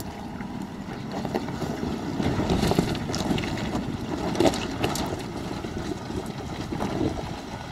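4WD ute's engine pulling uphill on a rocky track, tyres crunching over loose rocks and gravel, with sharp clicks of stones being kicked up, most of them in the middle.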